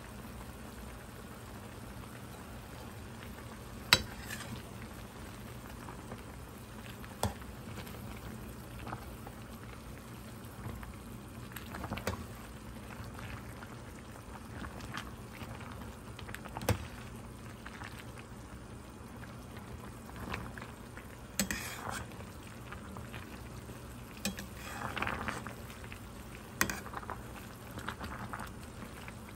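Pot of fish cake soup simmering with a steady bubbling, while a stainless steel ladle stirs and scoops through the fish cakes, clinking sharply against the pot about six times.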